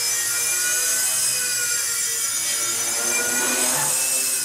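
WLtoys V988 Power Star 2 micro RC helicopter's electric motors and spinning rotors in flight: a steady high-pitched whine that rises and falls slightly in pitch as the throttle changes.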